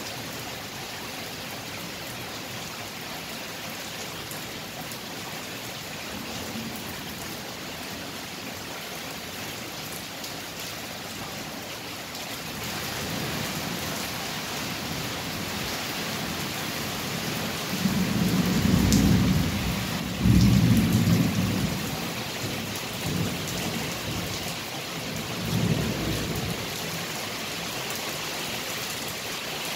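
Steady rain falling through a night thunderstorm, growing a little heavier about halfway through. Thunder rolls in past the middle with two loud low rumbles close together, then a couple of smaller rumbles.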